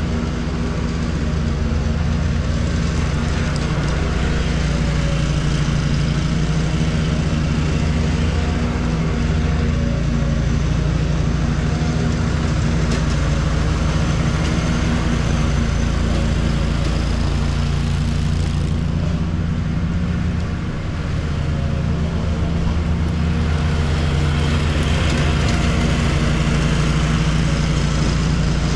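Walker riding lawn mower's engine running steadily under mowing load, a continuous low drone that dips briefly about two-thirds of the way through.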